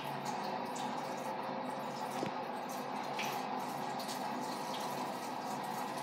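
Water running steadily onto a turning water wheel that drives a pump, a continuous rush of water with faint ticks from the wheel's machinery.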